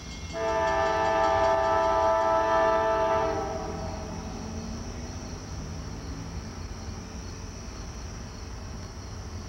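Diesel locomotive air horn sounding one long blast of several notes together, lasting about three seconds, part of its warning for the grade crossing ahead. After the blast the approaching train's rumble carries on more quietly.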